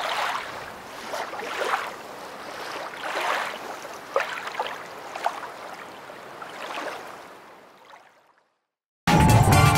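Water sloshing and lapping in gentle swells about every second or so, fading out about eight seconds in. After a brief silence, music starts near the end.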